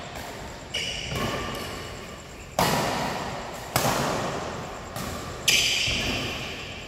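Badminton rally: rackets striking a shuttlecock, a run of sharp smacks roughly once a second, each ringing on in a large hall.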